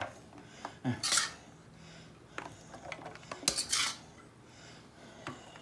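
Metal spatula scraping and clinking as fried rice is scooped from the wok and tipped into an aluminium foil tray. There are two loud scrapes with the rice rustling, about a second in and again midway, and lighter clinks between them.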